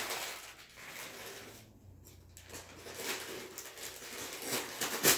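Gift-wrapping paper rustling, crinkling and tearing as a present is unwrapped by hand, with one louder, sudden crackle near the end.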